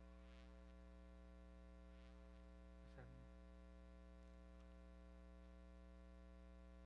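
Faint, steady electrical mains hum with a ladder of even overtones. A brief faint voice sound comes about three seconds in.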